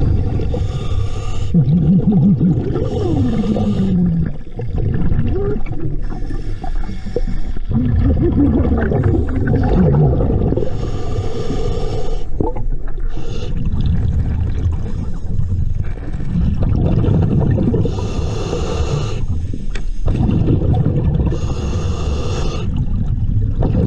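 Scuba diver breathing through a regulator underwater: a continuous low rumble of bubbling, with bursts of hissing breath every few seconds and a few short pitched tones that slide up and down.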